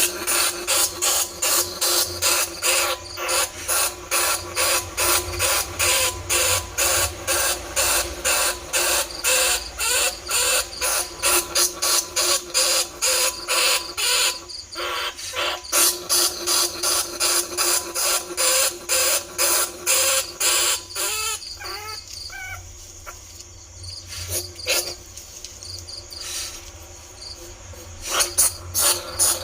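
Bandicoot rat squeaks played as a rat-luring call: a rapid, even train of sharp squeals, about three a second. About three-quarters of the way through the squeals give way to softer, rising chirps for several seconds, then the fast squeaking starts again.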